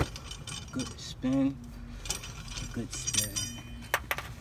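Four-way cross lug wrench spun by hand on a loosened lug nut, metal rattling and clicking irregularly as the nut turns on the wheel stud, with a sharp click just before the end.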